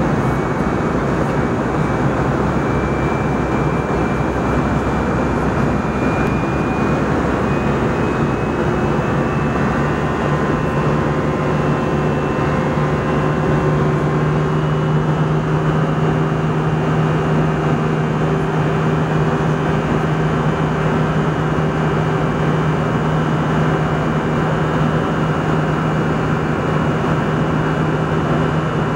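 Cabin noise of an Airbus A320 in cruise: a steady rush of air and engine noise, with a low steady hum and a faint high whine.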